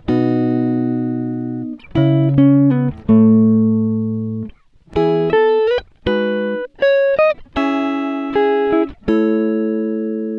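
Background music: plucked guitar chords and single notes, each struck sharply and left to ring and fade before the next.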